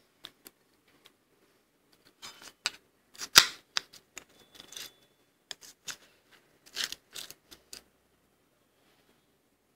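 A metal spoon scraping and scooping soft freezer frost in a ceramic bowl: a few light clicks, then a run of crunchy scrapes and sharp clinks from about two to eight seconds in, the loudest a little after three seconds.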